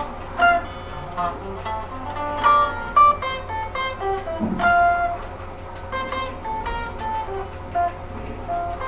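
Solo guitar playing a picked melodic intro: a quick run of single plucked notes, one after another, with a few louder accented notes.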